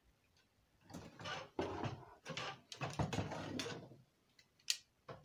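Fishing rods and spinning reels being handled, rattling and scraping against each other for a few seconds, then a single sharp click near the end.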